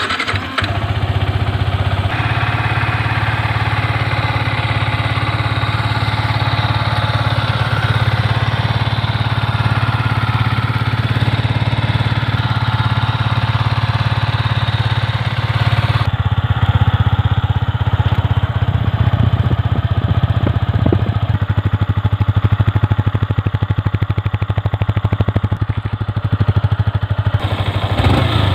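Yamaha R15 V3 BS6's 155 cc single-cylinder engine idling steadily through its stock exhaust, cutting in suddenly at the start.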